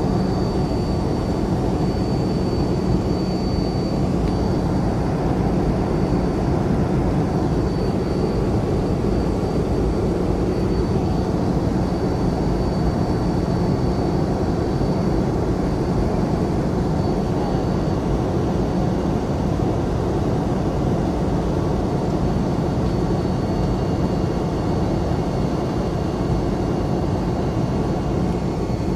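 Steady in-flight cabin noise of a Boeing 717 airliner: rushing air with the drone of its Rolls-Royce BR715 turbofans, a low hum and a faint high whine that fades out about two-thirds of the way through.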